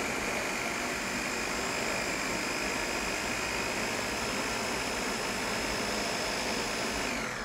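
Countertop blender motor running steadily as it purees cauliflower into a mash, a constant high whine, then winding down with a falling pitch near the end as it is switched off.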